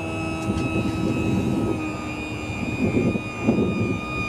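Electric hydraulic pump of a remote-controlled motorcycle trailer running with a steady high whine as it raises the trailer and bike off the ground; the whine sags slightly in pitch as it lifts.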